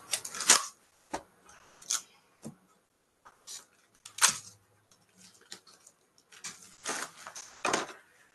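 Paper envelope being slit open and the papers inside pulled out and handled: a series of short, sharp paper rips and rustles separated by brief pauses.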